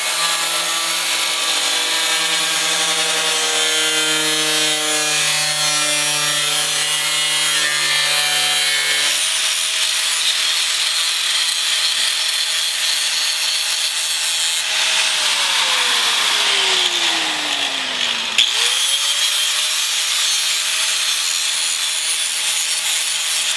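Power tool cutting through thin steel sheet metal, a continuous harsh grinding hiss over a motor whine. Past the middle the whine sags lower over a few seconds, then quickly picks back up.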